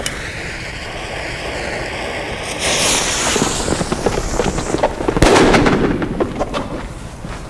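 A firecracker fuse hissing as it burns down, growing louder partway through, then a single sharp bang of a flash-powder (nitrate) banger about five seconds in, with a short rumbling echo after it.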